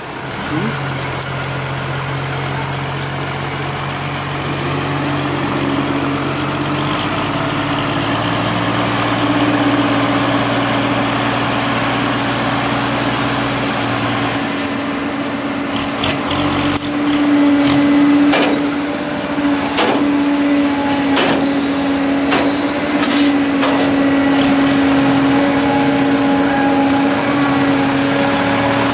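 Heavy diesel earthmoving machinery running steadily, its engine note shifting a couple of times. A series of sharp metallic knocks comes through the middle to later part.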